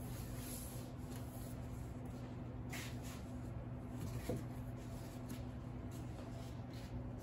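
Soft scraping and handling sounds of buttercream cake decorating over a steady low electrical hum, with a short squeak a little past four seconds in.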